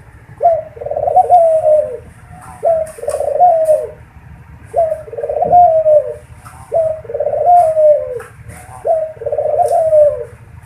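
Ringneck dove (burung puter) cooing: five two-part coos about two seconds apart, each a short note followed by a longer one that falls away at the end.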